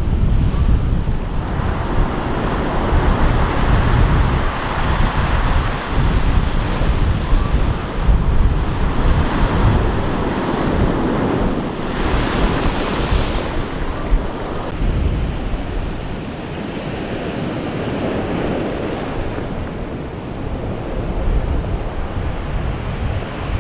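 Heavy hurricane-driven surf breaking and crashing against a concrete seawall, with strong wind buffeting the microphone. The waves surge several times, and the loudest, hissing crash comes about twelve seconds in; after about fifteen seconds the surf sounds duller.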